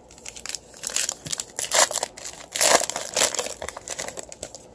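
Plastic trading-card pack wrapper crinkling and crackling in the hands as a pack of football cards is opened. The crackles are irregular and come in bursts, loudest about two and three seconds in.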